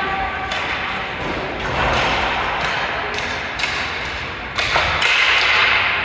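Ice hockey play in a rink: skate blades scraping the ice, with a series of sharp knocks from sticks, puck and boards.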